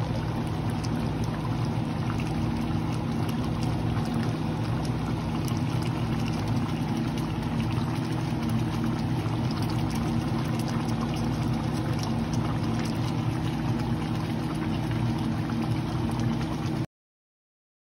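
A pan of chicken afritada in tomato sauce simmering on the stove, with small bubbling pops over a steady low hum. The sound cuts off suddenly near the end.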